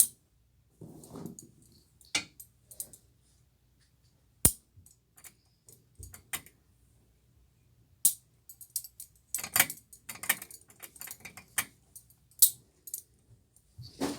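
Metal handcuffs and shackle chain clinking and clicking as they are handled and fastened: scattered sharp clicks, busier in the second half.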